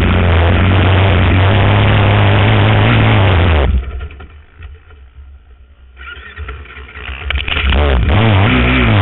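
Four-stroke single-cylinder 450 sport quad engine running hard under throttle. About four seconds in, the throttle shuts and the engine falls away quietly for about two seconds, then it picks up again, revving up and down near the end.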